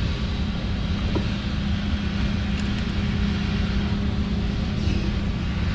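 Steady low engine-like machinery rumble with a constant hum, and a faint click about a second in.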